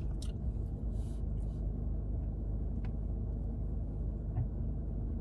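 Steady low rumble of a car's cabin, engine and road noise, with a couple of faint ticks.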